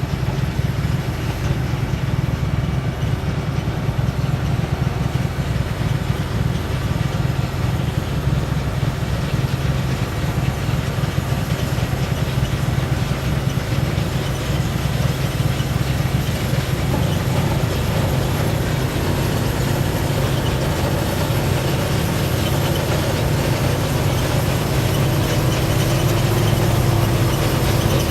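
Farm machinery engine running steadily at a constant speed, getting slightly louder near the end.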